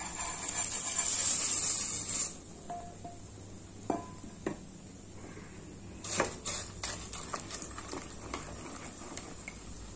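Roasted poha (flattened rice) tipped from a steel bowl into hot milk in a steel pot, with a hissing rush for about two seconds. Then a spoon stirs the pot, with a few knocks and scrapes against the steel.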